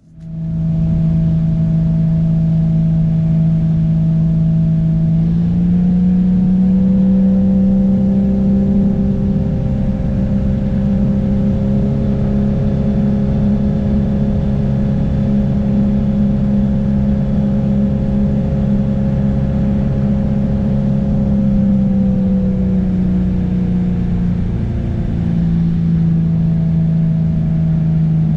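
An engine running steadily under load with a strong hum; its pitch rises a little about five seconds in as it speeds up, and eases back down near the end.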